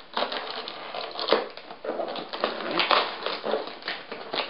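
Packing tape being torn and peeled off the top of a cardboard shipping box: an irregular run of crackling, ripping and scraping against the cardboard.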